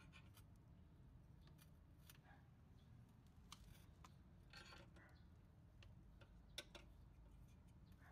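Near silence with faint, scattered metallic clicks, the loudest about six and a half seconds in: a car jack being set in place and its crank handle fitted and turned.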